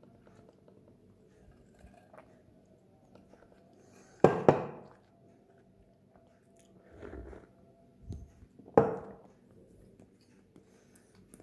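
Sharp double knock about four seconds in, then a single knock nearly five seconds later, with softer thuds in between: a milk-frothing pitcher and a glass of latte being set down on a wooden table.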